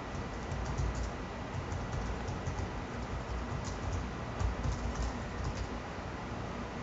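Faint, irregular clicking from computer controls at a desk, over a low steady rumble.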